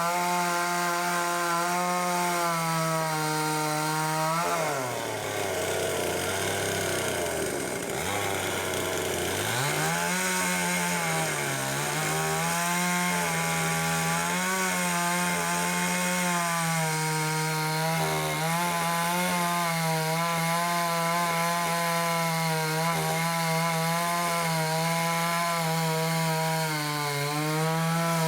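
Two-stroke chainsaw running at high revs while cutting wood. Its pitch sinks to about half for several seconds around five seconds in, then climbs back and holds steady with small wobbles.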